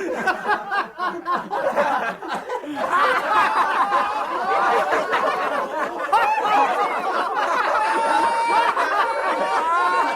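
Several people laughing together, many voices overlapping in chuckles and snickers; the laughter gets fuller about three seconds in.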